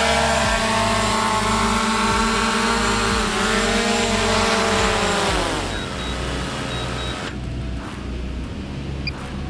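Multirotor camera drone flying close, its propellers giving a loud whine with many overtones. The pitch falls about five seconds in, and the whine cuts off suddenly about two seconds later.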